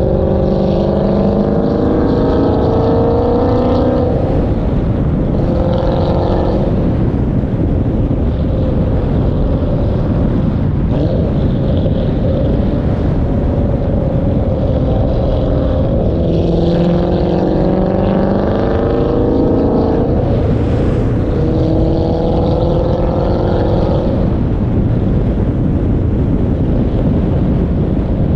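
Dodge Challenger Hemi V8 exhaust pulling under acceleration, its note rising in pitch four times: at the start, around six seconds, past the middle and again soon after. In between it settles to a steady cruise, and heavy wind rush on a car-mounted microphone runs under it all.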